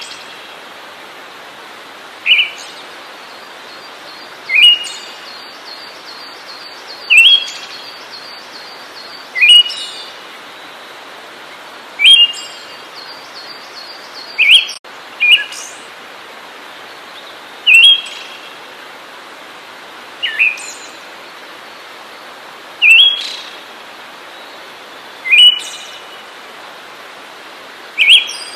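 A songbird repeating a short, sharp, rising call about every two and a half seconds, roughly a dozen times, over a steady background hiss.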